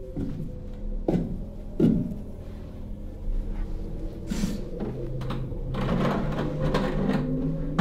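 Two sharp knocks about a second apart, then a few seconds of rustling as a heavy cloth cover is handled and pulled, over a low sustained musical drone.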